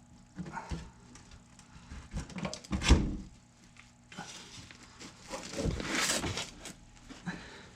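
Scattered knocks, clicks and scraping from hands and tools working a serpentine belt onto the engine pulleys. There is a sharp knock about three seconds in and a longer stretch of scraping near the end.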